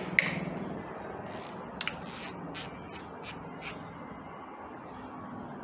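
Socket wrench ratcheting in short strokes on the top banjo bolt of a Toyota 2GR-FE V6's VVT-i oil line, a run of sharp metal clicks as the bolt is worked loose, over a steady low hum.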